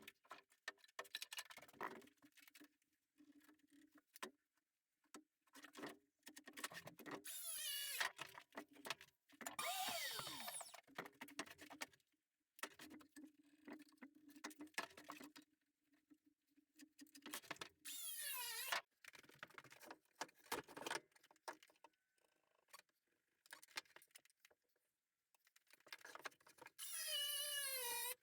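Faint, scattered workshop sounds: clicks and knocks of tools and wood being handled, with three short whirs from a small power tool, each falling in pitch as it slows.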